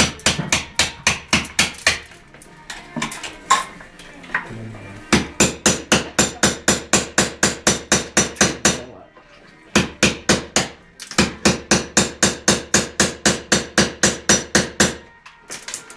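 Hammer blows against a wall around a built-in safe, in fast runs of about three to four strikes a second broken by short pauses, as the safe is knocked loose from the wall.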